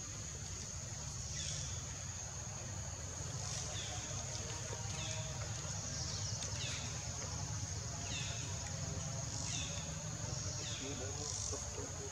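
Forest ambience: a steady high-pitched insect drone, with short falling chirps every second or so, over a low steady rumble.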